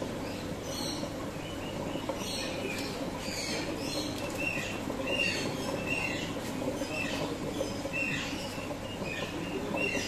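Steady rush of flowing water with small birds chirping in short, high, repeated calls over it.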